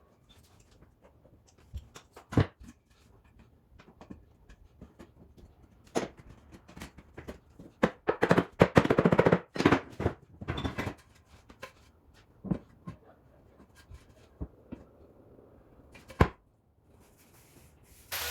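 Irregular knocks and taps of tools on wooden parquet boards, with a fast run of strikes from about 8 to 11 seconds in.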